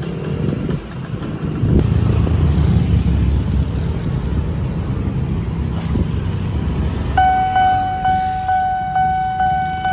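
Cars and motorbikes driving over a railway level crossing. About seven seconds in, the crossing's electronic warning alarm starts: a steady high tone pulsing in a regular rhythm, signalling that a train is coming and the barriers are about to close.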